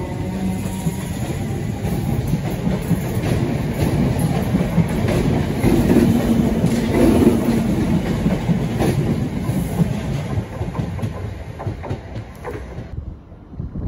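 Class 317 electric multiple unit running past close along the platform: steady wheel-and-rail rumble with a rapid run of clicks as the wheels cross rail joints, and a humming tone that fades out about a second in. The sound drops away sharply near the end.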